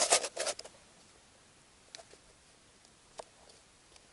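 Plastic ice-fishing tip-up being fitted over a hole in the ice: a quick run of knocks and scrapes in the first second, then a few single light plastic clicks as its flag is set.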